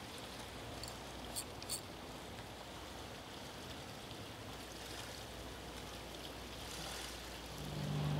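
Steady rushing of fast tidal current along a rocky shore, with two faint clicks about a second and a half in. Near the end a low, steady hum comes in.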